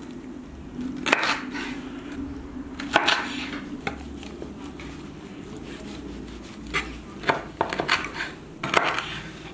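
Large kitchen knife cutting raw chicken and knocking on a wooden cutting board while fat and wing tips are trimmed off. A few sharp knocks, spaced out at first, then several closer together near the end.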